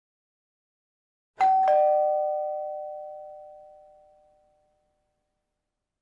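Two-tone doorbell chime, a ding-dong: a higher note is struck about a second and a half in, a lower note follows a moment later, and both ring out, fading over about three seconds.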